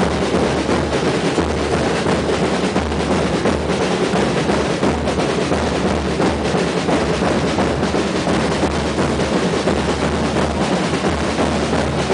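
A street drum band playing a tarantella: wooden-shell tamburi beaten with sticks, a bass drum struck with a mallet and crash cymbals, in a loud, dense, unbroken rhythm.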